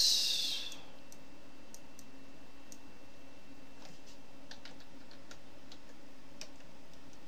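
Faint computer keyboard keystrokes and mouse clicks, a few scattered at a time, over a steady low hum and hiss. A short hiss sounds at the very start.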